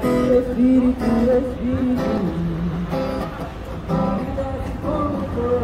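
Music: an acoustic guitar strummed about once a second, with a melody line above the chords.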